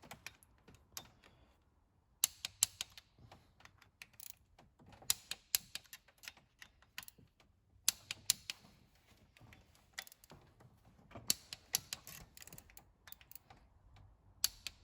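Ratchet wrench clicking in short runs of a few clicks, with pauses between, as the injector clamp bolts are run down and snugged to 3 Nm.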